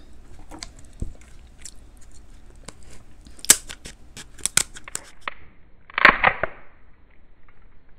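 King crab leg shell being cut with kitchen scissors and cracked apart by hand: a run of sharp snaps and crackles, with a louder crunching crack about six seconds in.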